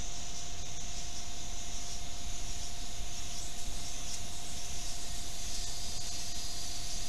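Steady hiss from a PR400 trail camera's microphone, with a constant faint high whine from the camera's own electronics and a low rumble underneath.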